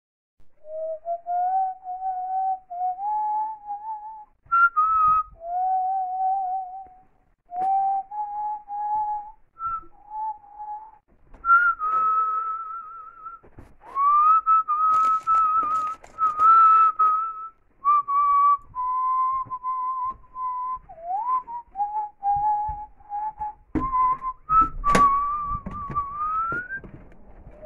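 A person whistling a tune in short melodic phrases, with a wavering, trilled note about twelve seconds in. Rustling and handling clicks come in partway through and again near the end.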